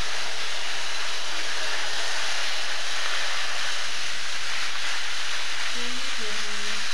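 Steady, even whirring hiss of several battery-powered Tomy toy trains running together on plastic track.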